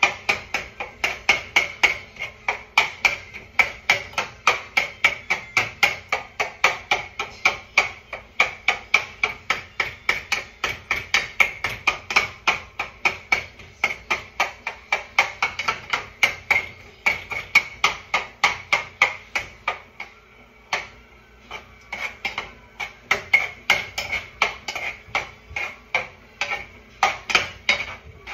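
A cooking utensil striking the inside of a metal pot over and over, about three or four strokes a second, as ground beef is chopped up in the pot; each strike rings briefly. The strokes pause for a moment about twenty seconds in.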